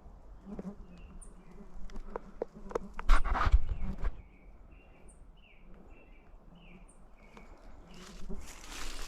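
Footsteps and rustling on the forest floor, loudest for about a second near the middle and again near the end. After the loud rustle a songbird sings a quick run of about eight short repeated notes, with a fainter high chirp now and then. A low buzz of flies comes and goes.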